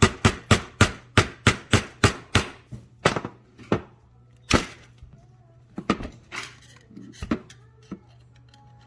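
Hammer tapping a screwdriver used as a punch to drive a drilled-out rivet through a paramotor exhaust silencer: a quick, even run of about three sharp taps a second for roughly four seconds, then a few slower, weaker taps.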